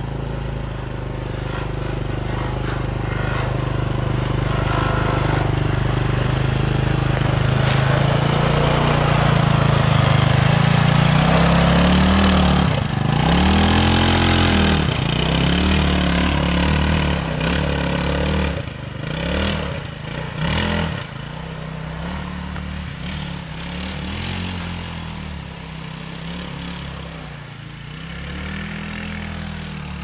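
Off-road go-kart engine driving on a dirt woodland trail: it grows louder and climbs in pitch over the first ten seconds, then is revved up and down over and over as the kart climbs a slope and pulls away, getting quieter.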